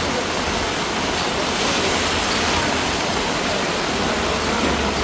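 Heavy rain pouring steadily, an even rush of falling water.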